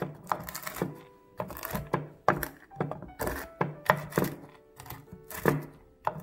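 Knife chopping pecans on a wooden cutting board: a run of quick blade-on-board thunks through the nuts, roughly two a second, over soft background music.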